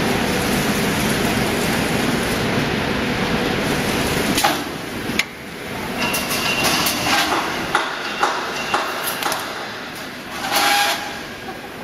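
Automatic welded wire mesh panel machine at work. A steady mechanical noise ends with a sharp clack about four seconds in, followed by irregular metallic clanks and knocks as the mesh is pulled through and welded. A louder burst of welding comes near the end.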